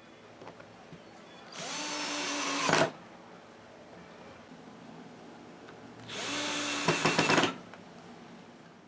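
A power drill runs in two short bursts, each spinning up in pitch and then holding a steady whine for about a second before stopping.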